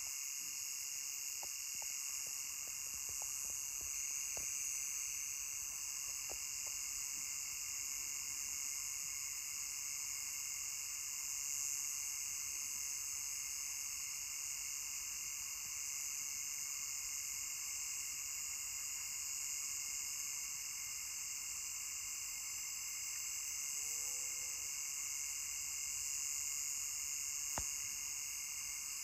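Steady chorus of night insects, several high-pitched layers droning on without a break. About 24 seconds in, a brief, fainter, lower call rises and falls once.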